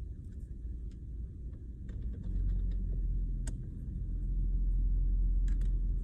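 Low, uneven rumble of handling noise, stronger from about two seconds in, with a few light clicks and ticks of a screwdriver working a screw out of the plastic steering-column cover.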